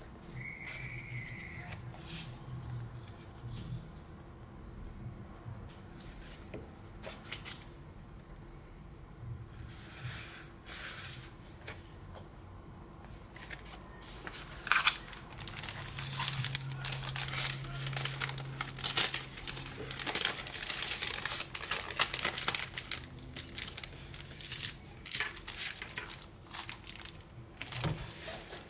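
Clear cellophane packaging and paper sheets handled by hand: light, scattered rustles and taps at first, then dense crinkling of the plastic sleeve from about halfway through as it is pulled off and crumpled.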